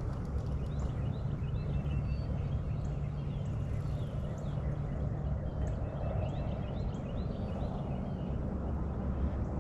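Birds calling repeatedly with short chirps over a steady low rumble.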